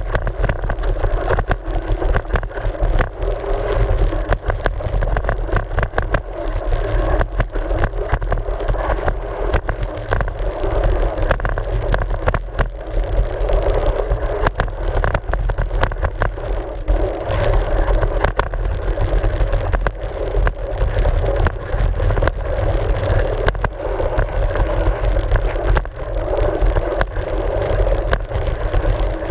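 Mountain bike ridden down a rough dirt trail, heard from a camera mounted on its front fork: a steady rumble of the knobby tyres on dirt and wind on the microphone, with constant small clicks and rattles from the bike shaking over the ground.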